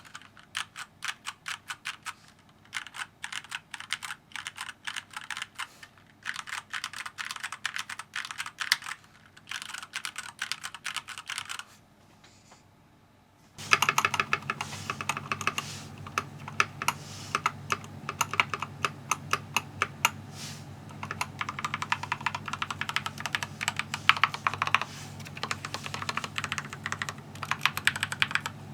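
Keychron K4 v2 mechanical keyboard typed on in fast runs of keystrokes as a sound test. About twelve seconds in the typing stops briefly, then resumes in a second take with a steady low hum underneath.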